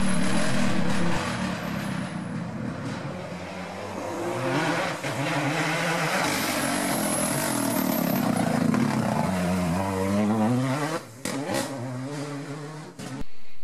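Rally car engines revving hard past the camera, the pitch climbing under acceleration and falling back on lift-off and braking several times over.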